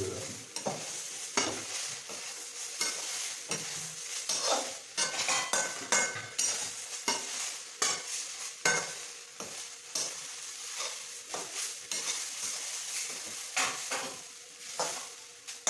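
A metal spatula stirs grated carrots in a large steel wok (kadai), scraping and knocking against the pan again and again over a steady sizzle of the carrots frying.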